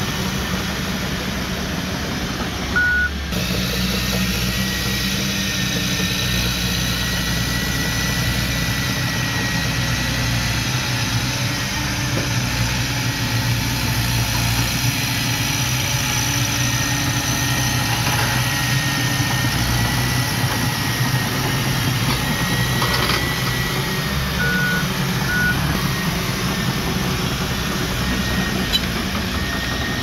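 Komatsu D31P crawler bulldozer's diesel engine running steadily as it pushes soil, with a faint high whine over the engine. A short beep sounds about three seconds in and two more near the end.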